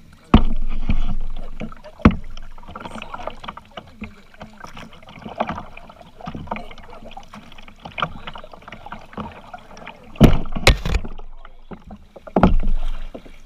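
Kayak on the water: paddle strokes splashing and water sloshing against the hull, with several sharp knocks, the loudest twice in quick succession about ten seconds in.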